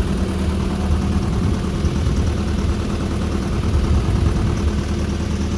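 Heavy diesel engine of construction machinery running steadily at a low, even pace.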